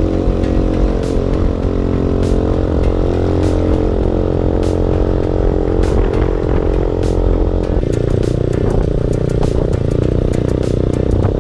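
Sport motorcycle engine running steadily while riding, its note shifting about eight seconds in, with short clicks every second or so.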